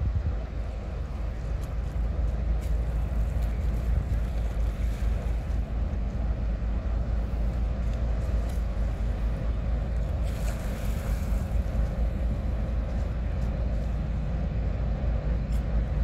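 Steady low rumble of the car ferry Blue Star Myconos manoeuvring in harbour, mixed with wind buffeting the microphone.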